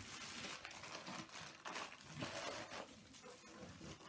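Plastic bag and bubble wrap crinkling as packaged cables are handled and set down in a box, an irregular rustle that grows softer in the second half.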